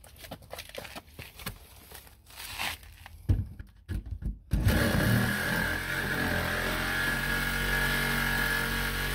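Corded jigsaw cutting into a door. A few knocks and handling sounds come first; about halfway through, the saw starts and runs steadily, with a whine, until the end.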